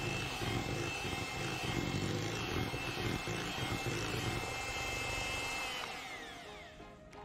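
Electric Panasonic hand mixer running steadily, its beaters whipping creamed margarine, sugar and egg batter in a glass bowl. Near the end it is switched off and its whine slides down as the motor spins down: the batter is creamed fluffy and pale.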